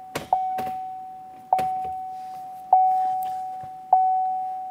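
Chevrolet Silverado dashboard warning chime ringing with the key in the ignition: a single-pitched ding repeated four times, about every 1.2 seconds, each one fading out. A few faint clicks fall between the dings.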